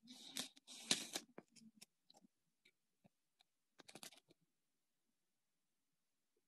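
A sanitary pad in its plastic wrapper being handled and unwrapped: crinkling and rustling, loudest in the first second, with a second short burst of crackles about four seconds in.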